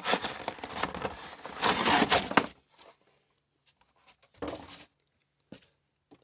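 Rustling and rubbing handling noise for about two and a half seconds, then a few faint clicks and a short rustle.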